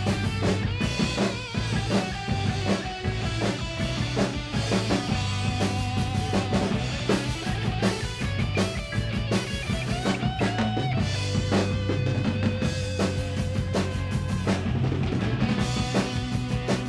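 Acoustic drum kit played along to a recorded instrumental track: a busy pattern of kick, snare and cymbal hits over held bass notes.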